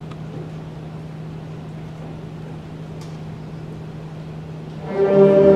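A steady low hum over the open room noise of a large gymnasium, then about five seconds in a school concert band comes in with a held chord.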